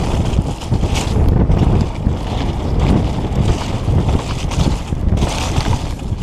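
Wind rushing over an action camera's microphone with the low rumble of mountain bike tyres on a rough, snow-covered single-track, jolting over bumps on the descent.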